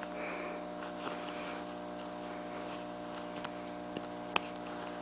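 Steady electrical hum with a few scattered light clicks, one sharper click about four seconds in.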